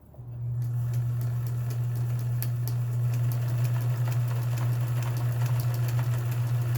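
Kenmore 158.1781 sewing machine running at a steady speed while sewing a decorative stitch: a low motor hum with fast ticking from the needle mechanism. It starts just after the beginning and stops near the end.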